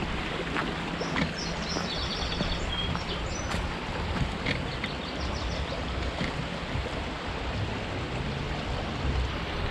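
Steady rush of a creek's running water, with uneven wind rumble on the microphone. A small bird trills briefly near the start and again about five seconds in.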